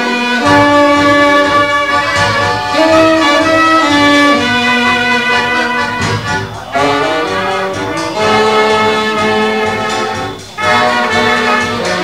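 Polish village folk band (kapela ludowa) playing a tango. Wind instruments carry the melody in long held notes, with a brief break between phrases near the end.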